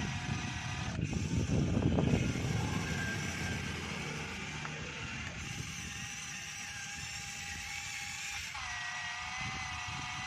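Radio-controlled model excavator's small electric motor whining steadily, with its pitch stepping up about eight and a half seconds in. A few low rumbling bumps come in the first two seconds.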